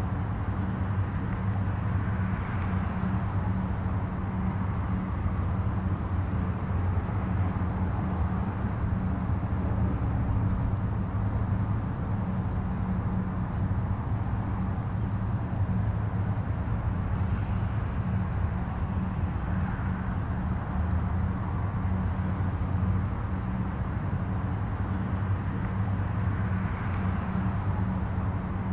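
Distant highway traffic: a steady low rumble, with three faint swells as vehicles pass.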